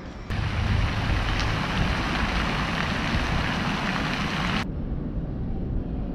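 Park fountain's jets splashing steadily into the basin, a dense hiss that starts suddenly and cuts off suddenly about three-quarters through, leaving a quieter low rumble.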